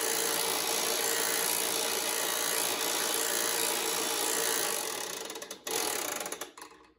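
Badland 2000 lb electric marine winch running, its motor and gears noisy as it winds its steel cable in against tension. From about five seconds in the sound weakens and cuts in and out, then stops near the end.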